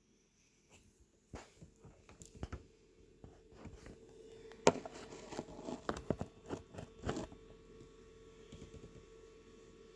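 Scattered sharp clicks and knocks with some rustling, like something being handled. A faint steady hum comes in about four seconds in.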